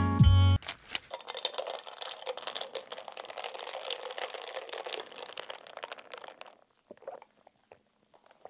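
Dense, even crackling and crinkling, like small rustles or ticks close together, lasting about six seconds. It thins into a few scattered clicks and then stops.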